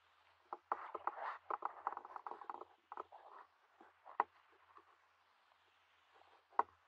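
Bare hands splashing and squelching in shallow muddy water while groping for fish. There is a dense run of small wet splashes about a second in, then two single sharp slaps later on.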